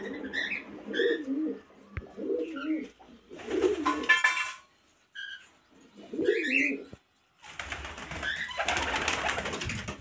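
Domestic pigeons cooing: short warbling coos repeated about five times, with a longer stretch of broad noise in the last couple of seconds.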